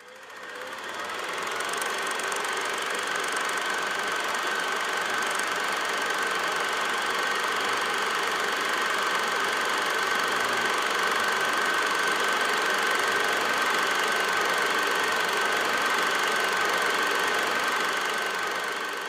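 Film projector running, a steady mechanical clatter with a constant whine, fading in over the first second or two and fading out near the end.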